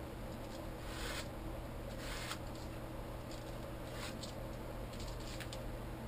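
Paper rustling and rubbing as a hand burnishes a book page pressed onto a painted plastic stencil, in several short scrapes, the two loudest about a second and two seconds in, then the page being peeled off.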